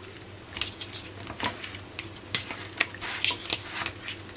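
Handling noises from a whole raw squid being lifted out of a styrofoam tray and laid on a plastic cutting board: irregular soft clicks, taps and wet squishes.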